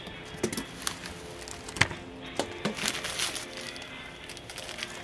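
Packing materials being pulled from a cardboard shipping box: plastic bags, bubble wrap and paper crinkling and snapping in a series of short, irregular crackles, over faint background music.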